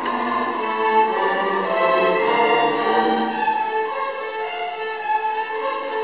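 Student string orchestra of violins, cellos and double basses playing, with bowed notes held about half a second to a second each.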